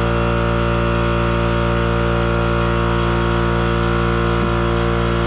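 Plasma cutter running, a steady buzzing drone with a hiss from the arc and its blast of air, unchanging throughout.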